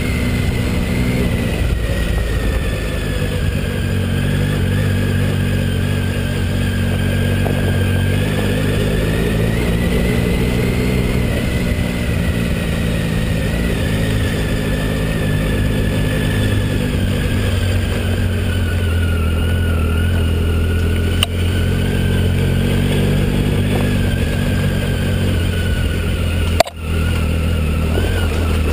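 Triumph Tiger 800 XC's three-cylinder engine running steadily as the motorcycle rides a dirt track, its pitch easing gently up and down with the throttle. A single sharp knock with a momentary drop in sound comes near the end.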